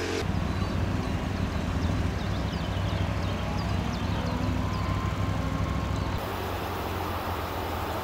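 Outdoor ambience: a steady low rumble with a run of short high chirps in the first few seconds, changing at about six seconds to a steadier, brighter hiss.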